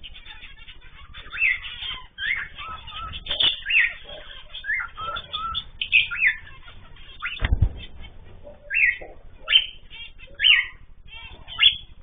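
A mixed aviary flock of zebra finches and cockatiels calling, a string of short, sharp chirps about one a second. A single low thump comes about seven and a half seconds in.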